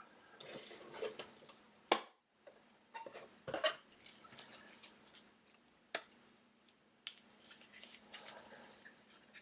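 Football trading cards being handled on a table: light rustling and sliding with several sharp clicks, about four of them standing out, over a faint steady hum.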